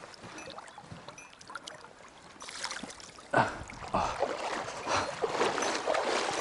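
Stream water rushing and splashing, faint at first and louder from about halfway in, with a short sudden sound a little past the middle.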